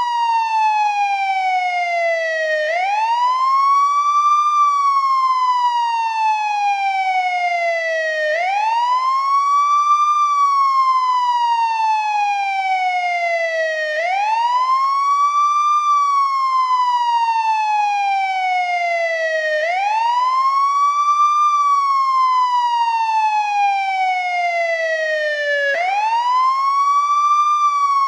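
American ambulance siren on the older wail setting: one continuous tone that climbs quickly and then falls slowly, the cycle repeating about every six seconds, five times over.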